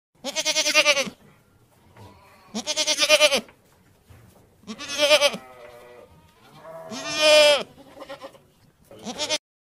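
Domestic goat bleating: four long, quavering bleats about two seconds apart and a short fifth near the end, with fainter calls between them.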